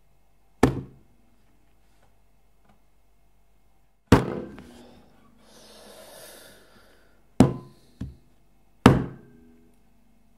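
Percussion hits played as a Mickey-mousing score: five sharp strikes, each ringing briefly. A soft rushing swell follows the second strike, then come two quick strikes (the second weaker) and a last one near the end.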